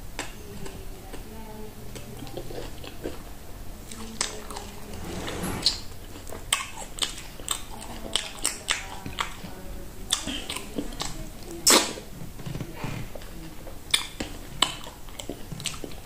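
Close-up eating sounds of a person eating fufu and okra soup by hand: chewing, with irregular sharp wet smacks and finger-sucking clicks from about four seconds in, the loudest near the end.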